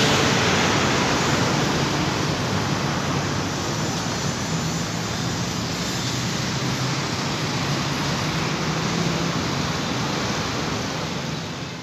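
Steady rushing noise with a low hum from a large diesel bus engine idling close by. It fades out right at the end.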